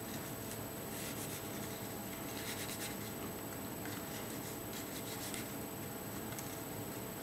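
Fingertips rubbing and scratching in a small plastic tray, rolling a piece of candy dough in crushed powder: light, irregular scratches over a steady background hiss.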